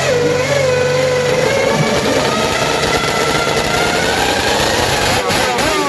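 Vintage racing motorcycle engine running loudly at a steady fast idle, then blipped on the throttle in quick rising-and-falling revs near the end.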